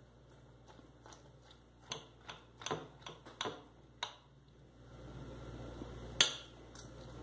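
Table knife and fork cutting an omelette on a ceramic plate: a run of short scrapes and clinks against the plate, then one sharper clink near the end.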